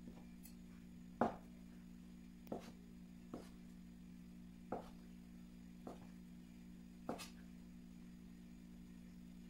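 Chef's knife slicing through a fresh boletus (porcini) mushroom and knocking on a plastic cutting board: about seven irregular knocks, the first, about a second in, the loudest, with two close together near the end. A steady low hum runs underneath.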